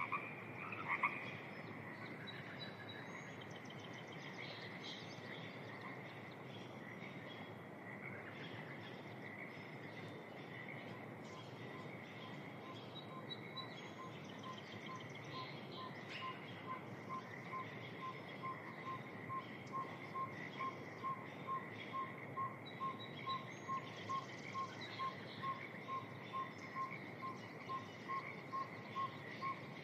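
Spring evening wetland chorus: frogs croaking loudly in the first second over a steady trill near 2 kHz, with scattered bird chirps above it. From about halfway through, a single short note repeats evenly, about one and a half times a second.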